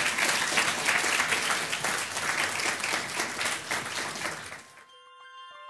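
Audience applauding after a lecture, a dense steady clapping that cuts off suddenly about five seconds in as a keyboard tune begins.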